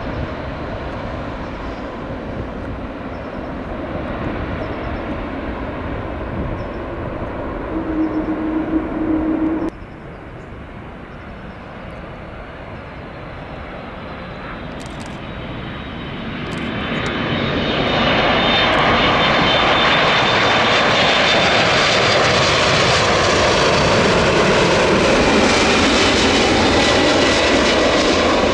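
Jet airliner engines heard as the plane passes close, the noise swelling from a little past halfway and staying loud to the end, with a whining engine tone above the rumble. Earlier, a quieter steady rumble with a short hum cuts off suddenly about a third of the way in.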